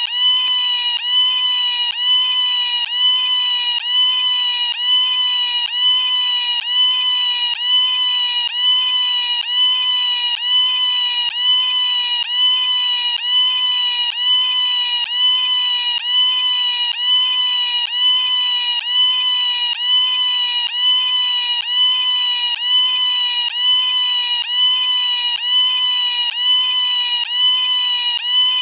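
A high-pitched, pitched-up 'Siuuu' shout looped as a ringtone, repeating about once a second without a break. Each cry starts with a quick upward jump and is then held.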